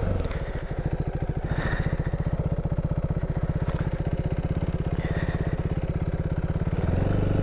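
KTM Duke 390's single-cylinder engine running at low revs as the bike rolls slowly, a steady rapid pulsing. It picks up slightly near the end.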